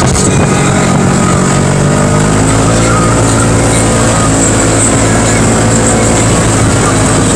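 Side-by-side off-road vehicle's engine running steadily as it drives along a dirt track, with a slight change in pitch about two seconds in.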